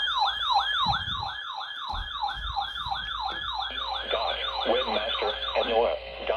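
Weather radio receiver's electronic alert siren, a repeating falling whoop about three times a second. A second, lower sweeping alarm tone joins about two-thirds of the way through.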